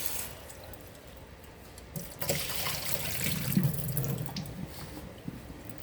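Kitchen tap running water into the sink for about two seconds, green beans being rinsed under it, with a short knock just before the water starts.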